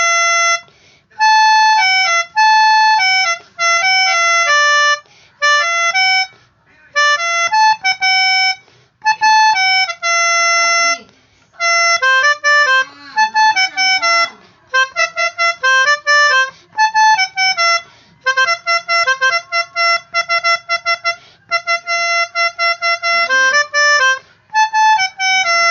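Telolet Basuri horn in its pianica version playing tunes in reedy, pianica-like tones. The tunes come as short phrases of quick notes, often two at a time, with brief pauses between phrases.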